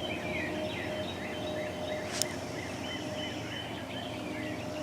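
Pre-dawn chorus of songbirds: many short chirps and twitters overlapping throughout, over a faint steady hum, with one sharp click about two seconds in.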